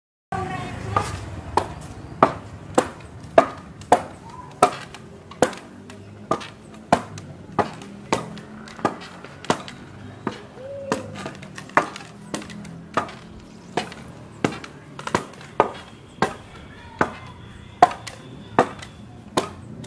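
Background music: a steady beat of sharp knocks, a little under two a second, over a soft low bass line, with a thin high tone held for a few seconds near the end.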